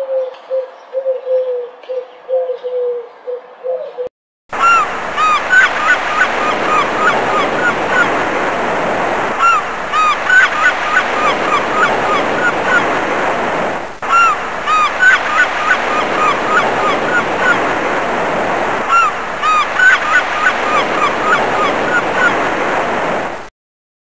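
Feral pigeons cooing softly for about four seconds. After a brief gap, a flock of flamingos honks loudly: a dense din of overlapping calls with many short, repeated honks. It cuts off suddenly shortly before the end.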